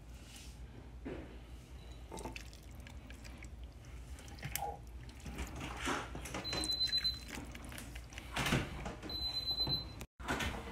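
Ladle scooping chunky taco soup out of a ceramic crock pot and into a bowl: quiet wet plops and drips with light clicks and scrapes of the ladle against the crock.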